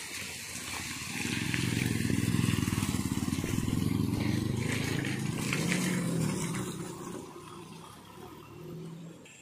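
Road traffic passing close by: a motorcycle's engine grows louder about a second in, stays loud for several seconds as it goes past, then fades near the end, with a car passing as well.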